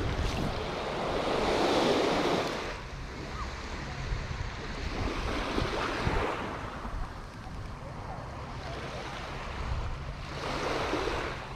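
Small waves breaking and washing up on a sandy beach, the surf swelling three times, a few seconds apart.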